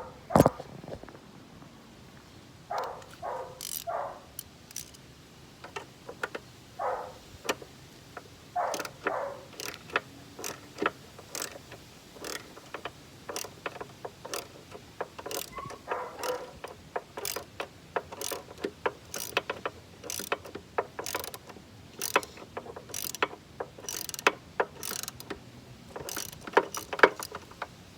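Ratchet wrench with a 5/16-inch socket clicking in short irregular runs as nuts are turned.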